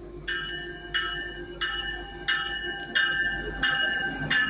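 The bell of a Stadler GTW diesel multiple-unit light-rail train ringing at an even beat, seven strokes about one and a half a second apart, as it pulls into the station. Under the bell is the train's low, steady rumble.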